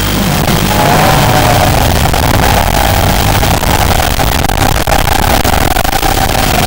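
Small ducted FPV quadcopter's motors and propellers whining, the pitch wavering with throttle, over a steady hiss.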